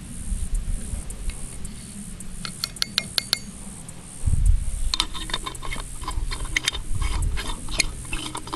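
Light clinks and clicks from handling a metal black-powder tin, a bottle-cap measure and a small signal cannon while loading it: a quick run of ticks about two and a half to three and a half seconds in, then many scattered clicks through the second half, over low rumbling handling noise.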